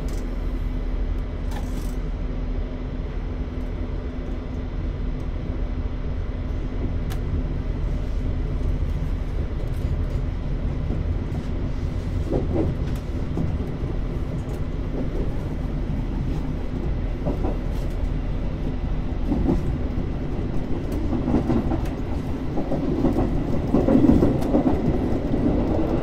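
Train running, heard from inside the front car: a steady rumble of wheels on rail with occasional faint clicks. It grows louder over the last five seconds.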